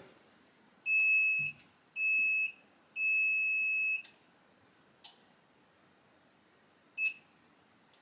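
Remote control's electronic beeper counting down in solo mode. It gives two short high beeps, then a longer beep that ends as the first clay trap fires. A single short beep follows about three seconds later as the second clay is released.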